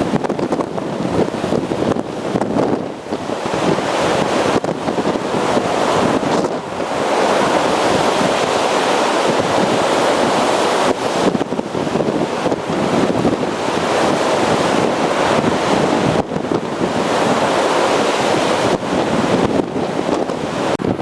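Large storm waves breaking on a lakeshore in a severe windstorm, with wind gusts buffeting the microphone: a continuous loud rushing that swells and eases.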